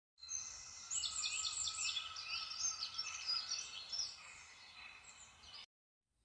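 Small songbirds chirping and singing in high, quick notes, with a fast run of repeated chirps about a second in; the sound starts abruptly and cuts off suddenly near the end.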